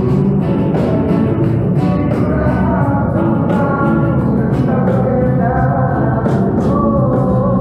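Small acoustic band playing: strummed acoustic guitars and an upright double bass, with a man singing.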